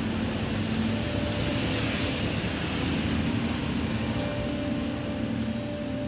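Rain falling on a city street with traffic going by, tyres hissing on the wet road; the hiss swells about two seconds in as a car passes. A steady low hum runs underneath.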